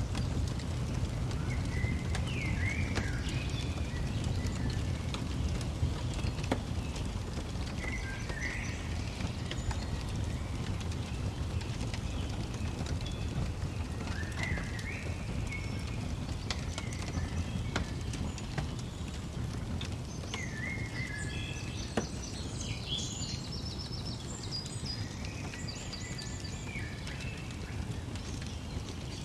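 Small birds chirping and singing in short phrases over a log fire's steady low rumble, with a few sharp crackling pops from the fire.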